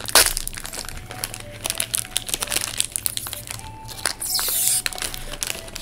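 Crinkly snack packet crackling as it is handled and pulled open, with a brief louder rasp a little after four seconds in.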